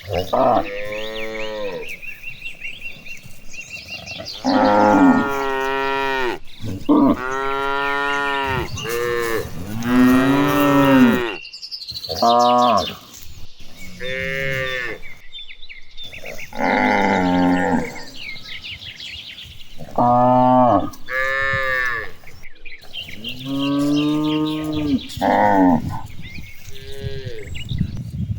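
Cattle mooing over and over: about a dozen long moos, one after another with short pauses between, some deep and some higher-pitched, from several cows.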